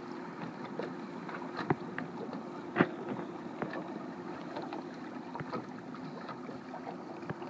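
Steady wind and lake water around a small fishing boat, under a faint steady hum, with a few light clicks and knocks. The sharpest click comes about three seconds in.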